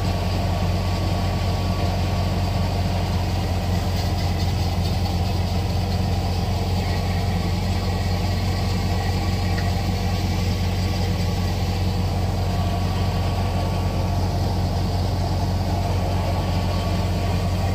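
Tractor-driven multicrop thresher running steadily while threshing wheat: a constant, unbroken engine drone with a strong low hum.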